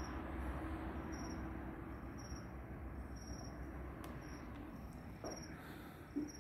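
Crickets chirping at night: short high chirps repeating about once a second over a low steady rumble, with a brief knock near the end.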